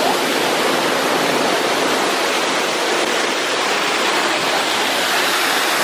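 Rushing water of a hill-stream waterfall pouring over rock, a loud, steady, unbroken rush.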